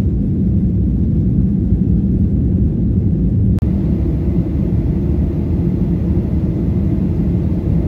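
Cabin noise of a Ryanair Boeing 737 taking off and climbing: a loud, steady, deep jet-engine rumble, with a brief break and a slight change in tone about three and a half seconds in.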